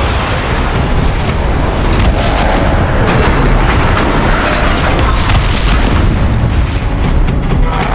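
Layered battle sound effects: a continuous heavy rumble of explosions and booms with several sharp impacts, mixed over music.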